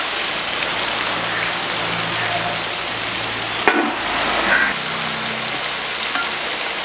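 Masala-coated fish pieces deep-frying in a wide steel pot of hot oil, a steady sizzle, with one sharp click about halfway through.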